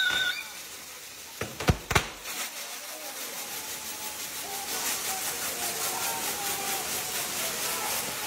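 A quick run of four sharp bangs about a second and a half in, then the steady hiss and crackle of firework fountains spraying sparks.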